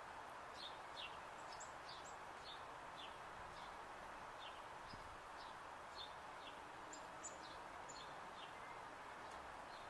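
Small birds chirping in short, high, downward-sliding notes, about two a second, over a steady faint outdoor background hiss.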